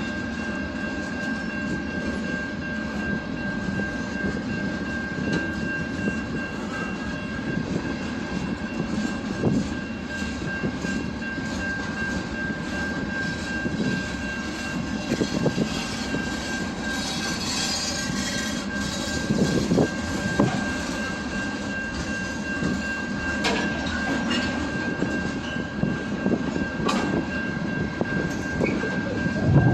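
A train rolling past, its wheels clattering over the rail joints in an irregular run of clicks over a steady rumble, with a steady high-pitched tone above it.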